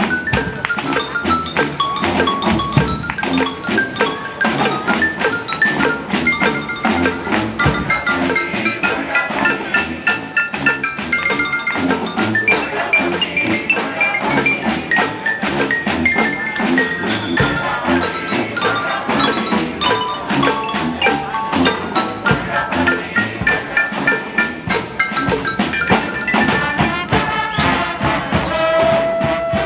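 Street band playing a salsa number: a busy percussion groove with quick, bright melodic notes over it.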